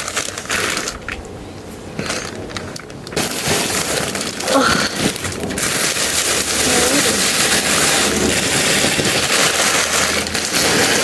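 Gift packaging crinkling and rustling as it is handled, with a brief lull about a second in, then dense crackling for most of the rest.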